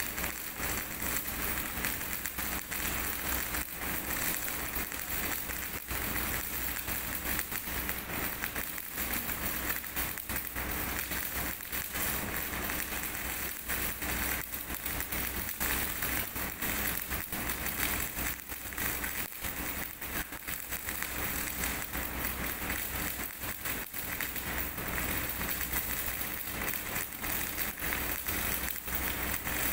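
MIG welding arc on steel plate, a continuous dense crackle and sputter of spatter as a bead is run without a break, with a steady low hum underneath.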